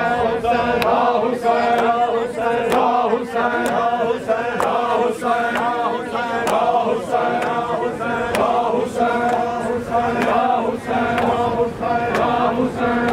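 A group of men chanting a Muharram noha in unison while beating their chests in matam. The hand-on-chest slaps keep an even beat of about two a second under the chant.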